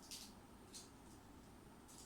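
Near silence: room tone with three faint, brief soft rustles.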